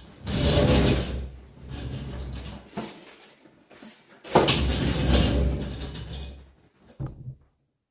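Movement and handling noise around an office chair: the chair shifting and creaking as a person gets up out of it, then a sudden thump and creaking about four seconds in as he drops back into it, with a short knock near the end.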